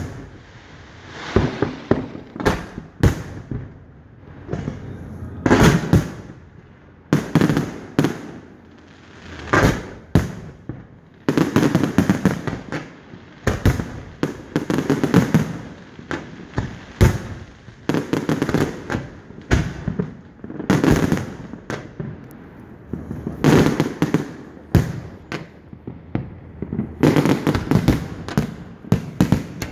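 Fireworks display: aerial shells bursting one after another in irregular clusters, each sharp bang trailing off into a rumble, with rapid crackling volleys in the busiest stretches.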